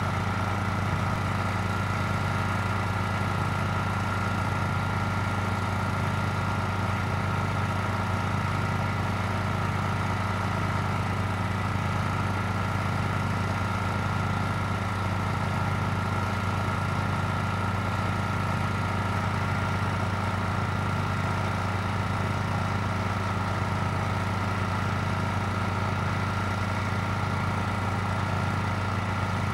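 An engine idling steadily, with a slight regular beat about once a second.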